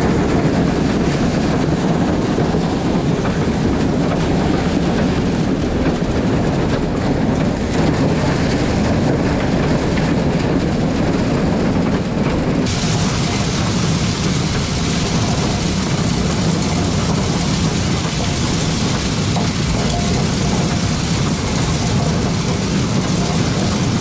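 Tractor-mounted New Idea corn picker working, with ears of corn being carried up its elevator and the International 686 tractor running beneath it: a loud, steady machine noise that turns hissier about halfway through.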